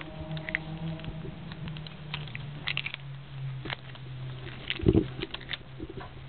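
A cat biting and pawing at a dangled cord on a bed: scattered soft clicks and rustles of teeth and claws on the cord and cloth, with one louder bump about five seconds in. A steady low hum runs beneath.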